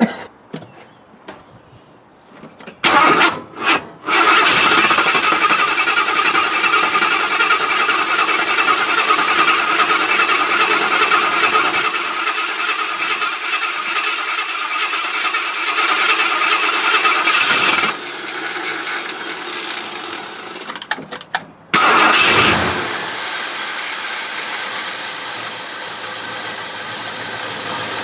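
AMC 401 V8 with an Edelbrock four-barrel carburetor being cranked and catching about three seconds in, then running fast and loud before dropping to a lower, rougher idle; about 21 seconds in it falters, then picks up again with a burst and idles on. It does not want to idle, which the owner puts down to plugged idle circuits after water got into the carburetor.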